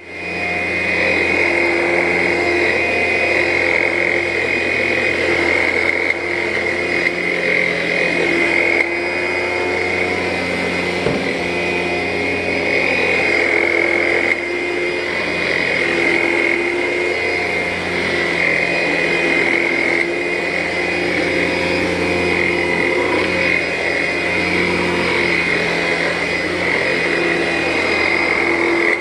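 Vacuum cleaner switched on and running steadily on carpet, with a high whine; its motor note wavers now and then as it is pushed.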